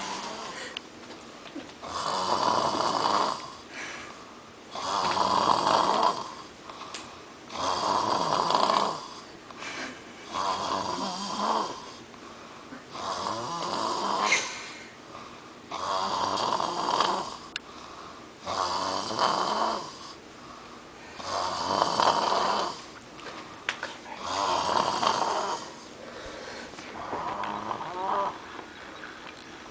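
A sleeping woman snoring really loud: about ten long snores in a steady rhythm, one roughly every three seconds.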